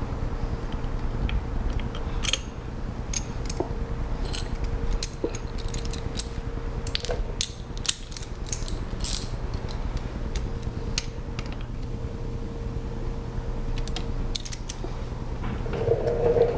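Hex key or hex-bit ratchet tightening a Loctited bolt into a motorcycle turn signal housing: scattered short metal clicks and ticks over a steady low hum.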